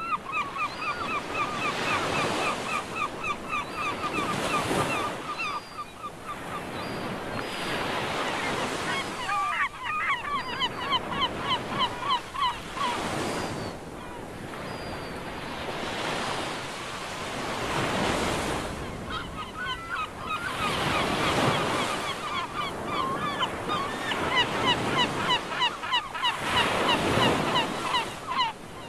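Wind gusting across the microphone in uneven swells. Several runs of rapid, evenly repeated squeaky chirps, about four a second, come and go over it.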